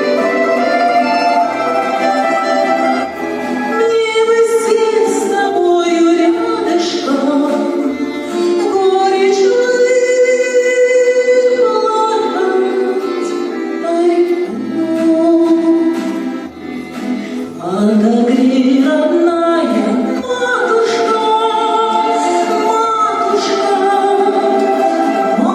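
Singing with instrumental accompaniment: a sustained, melodic song.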